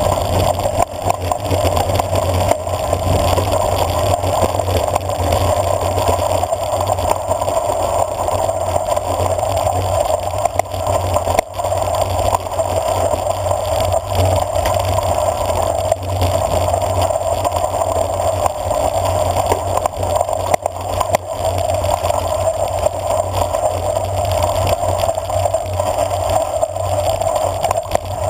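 Steady rushing wind and gravel-tyre rumble from a bicycle coasting fast down a dirt road, with a few small jolts from the rough surface.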